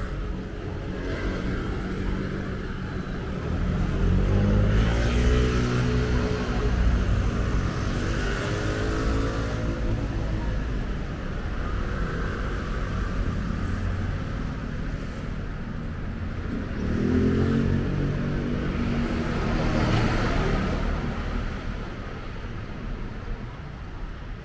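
City street traffic: motor vehicles passing close by, their engines speeding up past the listener twice, over a steady background of traffic noise.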